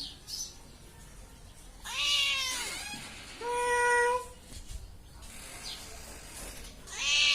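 Domestic cat meowing three times: a long call about two seconds in whose pitch bends down and back, a shorter steady-pitched meow a second and a half later, and a third starting near the end.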